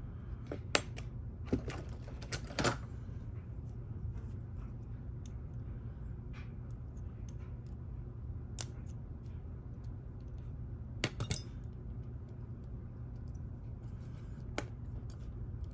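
Scattered sharp metallic clicks and clinks of a Lockwood lock cylinder and its small parts being handled and put back together, a few close together near the start and a quick double click in the middle, over a steady low hum.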